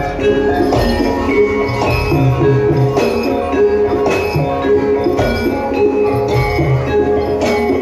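Javanese gamelan-style music for a jaran kepang dance: tuned metal percussion ringing out a repeating pattern over drums, with a steady beat.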